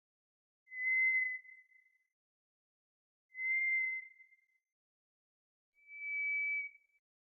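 White's thrush singing: slow, pure, drawn-out whistled notes, three of them about two and a half seconds apart, each held about a second and trailing off, the last slightly higher.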